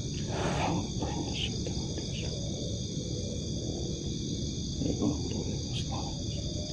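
Steady high-pitched chorus of night insects such as crickets, several even trills at once, over a low rumble. There are brief louder noises near the start and again about five seconds in.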